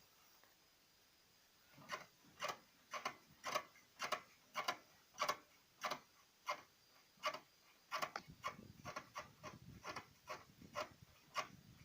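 Worn rubber silent block on a VAZ 2108's rear suspension beam (the 'crab') squeaking over and over in a steady rhythm, about two short squeaks a second, starting about two seconds in. The squeak is the sign of a worn bushing that needs replacing.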